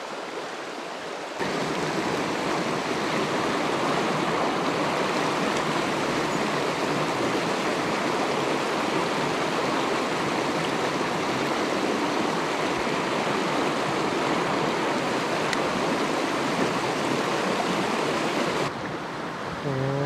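Mountain stream rushing over rocks and small rapids, a steady even rush of water. It grows louder about a second in and drops back near the end.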